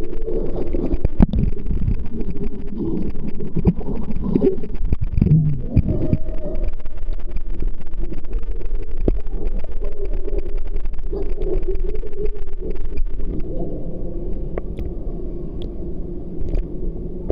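Pool water sloshing and lapping right against the microphone, a dense low, steady noise with a few knocks.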